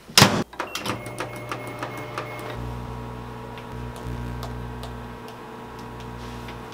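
Microwave oven door shut with a thump, a few short keypad beeps, then the oven running with a steady hum that gets louder about two and a half seconds in, heating food.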